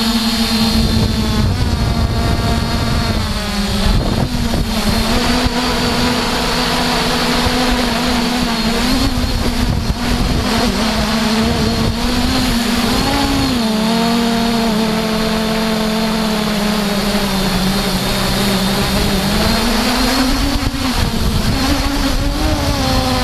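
Quadcopter drone's propellers whining steadily, the pitch dipping and rising a little several times as it manoeuvres, with rough noise over the microphone.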